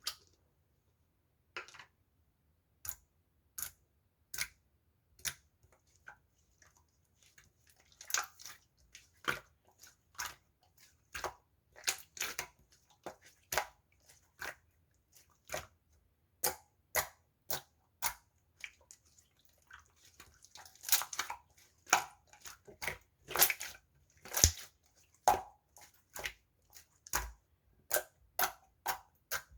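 Water-jelly sherbet slime being pressed and poked by hand, giving a string of short wet clicks and pops. They are spaced out at first and come faster and louder in the second half.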